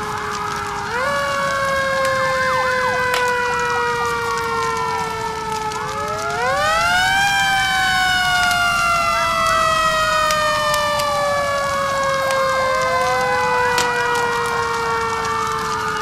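Several fire-truck sirens sounding together. Wailing tones rise and fall over a long siren tone that jumps up in pitch about a second in and again around six seconds in, then slowly sinks. Scattered crackles of a burning fire sound beneath.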